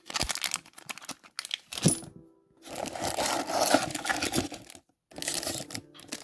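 Plastic packaging crinkling and rustling as box contents are handled, with scattered clicks in the first two seconds. A longer, louder stretch of crinkling comes near the middle.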